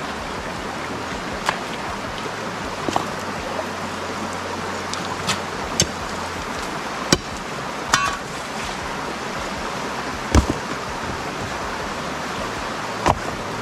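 Brook water running steadily, with about eight scattered sharp clicks and knocks of stones as gravel is dug out by hand.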